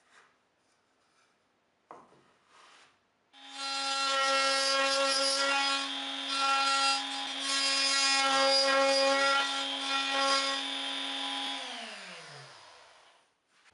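Trim router mounted in a router table switched on about three seconds in, running at a steady high whine while it cuts a spline slot through the corner of a pine box pushed across the bit on a spline-jig sled. Near the end it is switched off and winds down, its pitch falling away.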